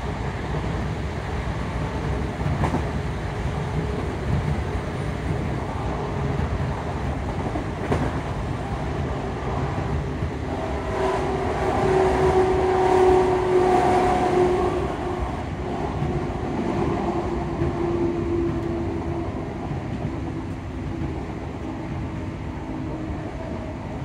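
Class 334 Alstom Juniper electric multiple unit running at speed, heard from inside the carriage: a steady rumble of wheels on the rails. About ten seconds in, a humming tone from the traction motor cooling fans swells, then fades by about twenty seconds.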